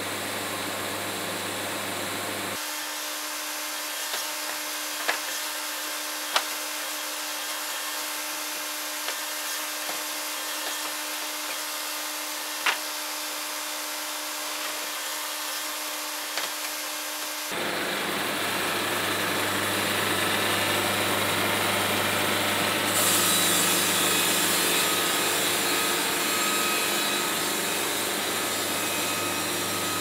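Wood-Mizer band sawmill running, its blade cutting along cherry boards to edge off the sapwood: a steady mechanical noise with a few sharp knocks in the first half. The sound changes abruptly twice, a few seconds in and again past halfway.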